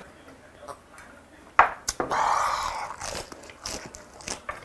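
Close-miked eating: a man biting and chewing food, with small crunchy clicks. About a second and a half in there are two sharp clicks, then a breathy rush of air lasting about a second.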